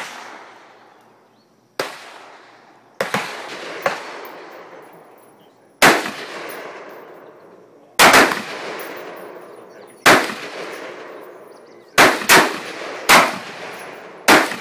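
Smith & Wesson M&P15 AR-15 rifle firing single shots at a slow, irregular pace, about a dozen in all, with a few quick pairs. Each sharp report trails off in a long echo, and some quieter shots come from other guns on the firing line.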